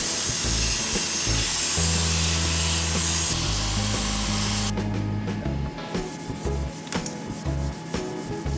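Power sander running, a steady loud hiss that stops about five seconds in, over background music that carries on alone afterwards.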